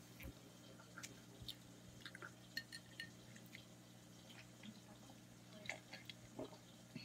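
Near silence: faint sips, swallows and small glass clicks of someone drinking juice from a glass, over a low steady hum.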